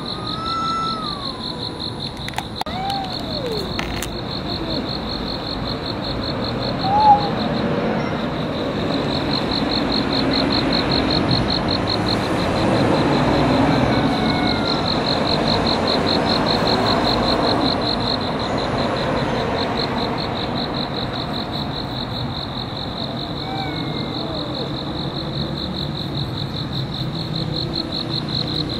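Insects chirping in a steady, fast-pulsing high trill, with a few short sliding cries in the first eight seconds, the loudest about seven seconds in.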